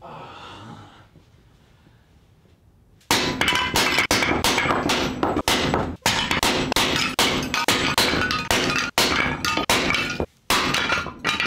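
Sledgehammer blows in rapid succession on a cast aluminum heating plate resting on a cast iron plate, with sharp metallic clanks and ringing. The blows begin about three seconds in and stop shortly before the end, and under them the cast iron plate cracks.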